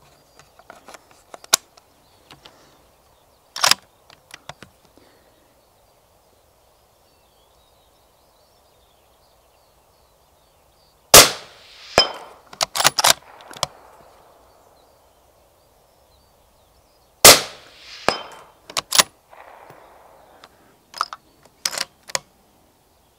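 Two shots from a moderated 6.5 Creedmoor Mauser M18 bolt-action rifle, about six seconds apart, each trailing off in a short echo. Sharp metallic clicks of the bolt being worked come between and around the shots.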